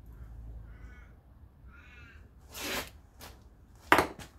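Two short squeaks about a second apart as a thread-locked screw is turned out of a Homelite chainsaw, then a rustle and a sharp knock near the end as the saw is handled.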